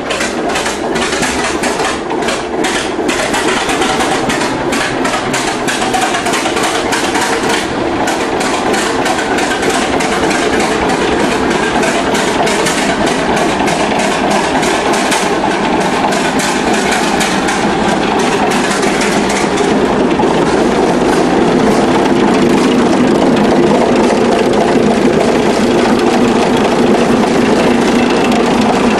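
Mirrlees U type stationary diesel engine running on its first run, with distinct, regular exhaust beats over a steady drone. It gets slightly louder about two-thirds of the way through.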